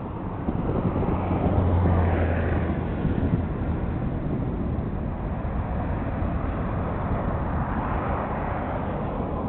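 Distant jet airliner's engines during the landing rollout, a steady rushing din that swells to its loudest about two seconds in with a deep hum, then holds even.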